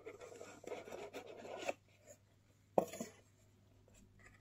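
Fingers rubbing and scraping across a white cardboard box for about a second, then one sharp tap on the box near the middle.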